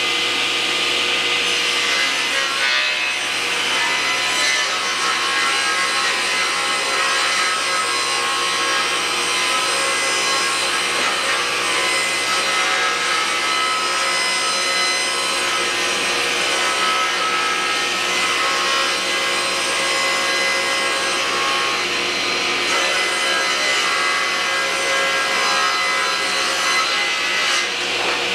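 Table saw ripping a full sheet of MDF lengthwise, the spinning blade cutting steadily through the board without a break.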